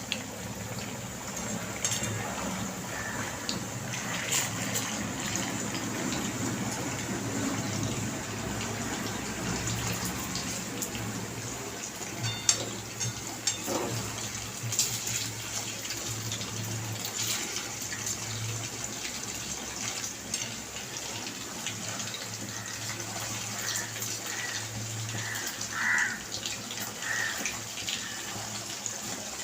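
Marinated chicken pieces frying in hot oil: a steady sizzle with scattered crackles and pops.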